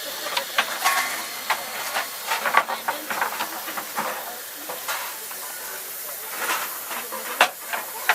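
Steam locomotive hissing steadily as it vents steam, with scattered short knocks.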